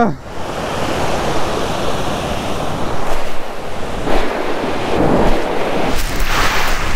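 Heavy Pacific surf pounding and washing up the beach, rising and falling in swells as the waves come in, with wind buffeting the microphone.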